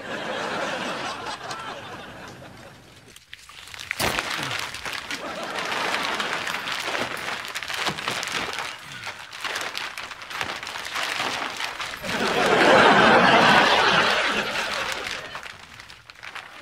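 Studio audience laugh track: a crowd laughing in waves, with a brief lull about three seconds in, swelling to its loudest burst of laughter around twelve seconds in and dying away near the end.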